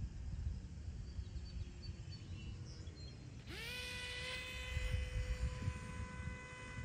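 The propeller motor of a Nano Drak RC model plane spools up quickly about halfway through, then holds a steady high whine. Low wind rumble on the microphone runs underneath.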